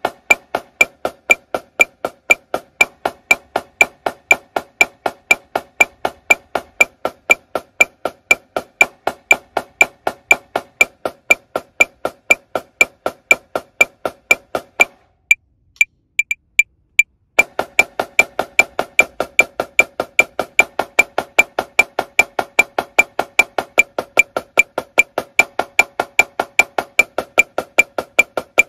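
Marching snare drum played with sticks in the 8-8-16 exercise, in time with a sharp metronome click. About halfway through the drumming stops for roughly two seconds while the click carries on, then resumes at a faster tempo, stepping up from 120 to 150 beats per minute.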